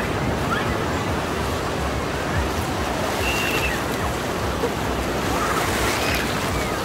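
Sea surf breaking and washing through shallow water, a steady rush of wave noise.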